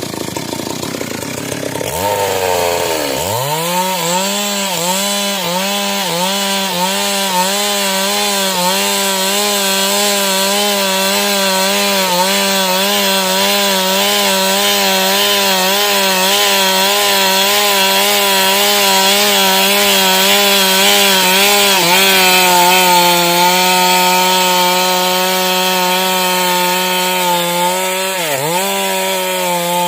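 Two-stroke chainsaw revving up a couple of seconds in, then held at high revs under load, ripping a log lengthwise. Its pitch wavers in a steady rhythm as the bar works through the cut. Near the end the revs dip sharply once and pick up again.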